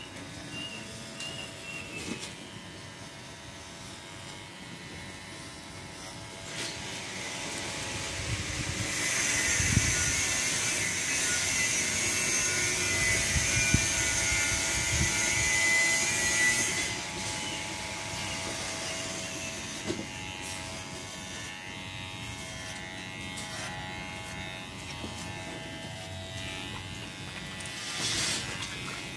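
Electric pet clippers humming steadily while trimming a dog's long fur, growing louder and hissier for about ten seconds in the middle.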